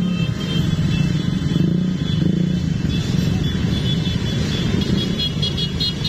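Motorcycle engines running together in a steady rumble, as a group of bikes rides through the street.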